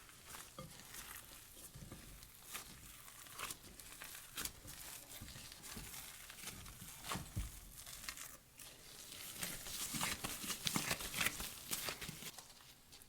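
Crinkling, rustling handling sounds made up of many light clicks and crackles, growing busier and louder near the end.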